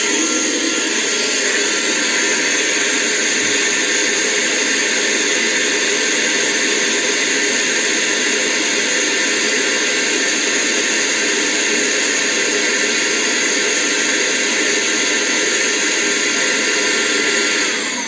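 ILife H70 handheld vacuum cleaner running steadily on its higher power setting: a loud rush of air with a thin, high motor whine. Near the end it switches off, and the whine glides down as the motor spins down.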